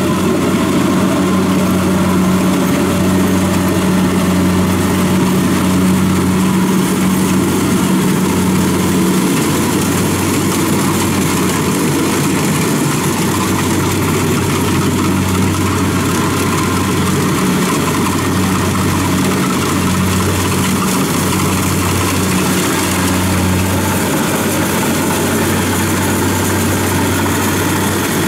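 Kubota DC-70 rice combine harvester running steadily as it cuts rice in a wet paddy: a low diesel engine drone under the noise of the working cutter and threshing machinery, the engine note wavering slightly.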